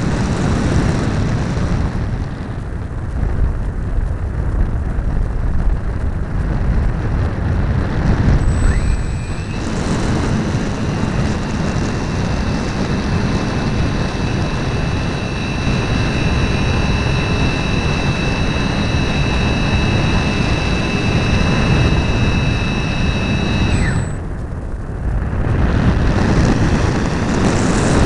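Wind rushing over an onboard camera on a flying RC model plane, with the plane's motor whine coming in about a third of the way through as a steady high tone and cutting off sharply near the end, leaving only the wind rush.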